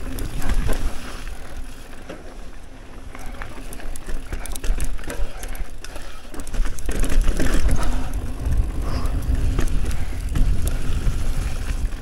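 Commencal Meta TR mountain bike riding down a dirt trail: tyres rumbling over the ground, with chain and frame rattling and clicking, and wind noise on the microphone. It gets louder about seven seconds in.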